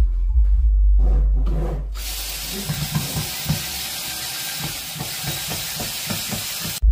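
Cordless drill running against the screws of a plywood crate lid, backing them out: a harsh whirring hiss with uneven low knocks that starts about two seconds in and cuts off abruptly near the end.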